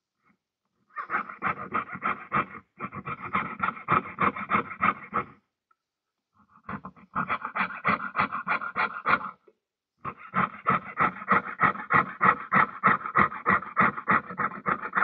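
Jeweller's piercing saw cutting through sheet metal: quick back-and-forth saw strokes, about four or five a second, in runs of a few seconds with short pauses between.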